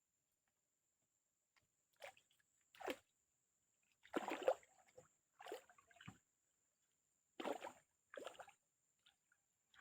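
River water sloshing and splashing in a run of short, separate splashes, about seven in all, the loudest a little after four seconds in.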